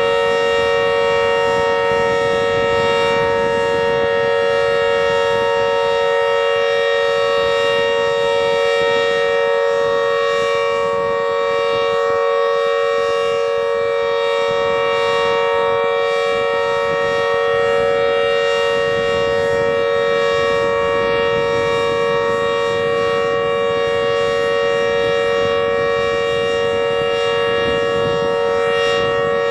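Loud, unbroken electronic alarm tone, several steady pitches sounding together with no rise or fall: an Emergency Alert System–style warning signal.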